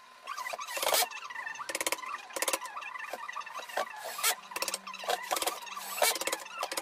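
Upholstery fabric being pulled and worked over the padded rim of a sofa: a string of short scratchy rubbing strokes at uneven intervals, with small squeaks from the cloth and foam.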